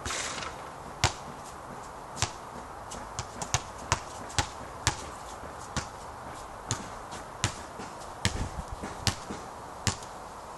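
A basketball dropping through the net with a short swish, then bouncing on the court many times as sharp smacks at uneven spacing, several in quick succession near the end.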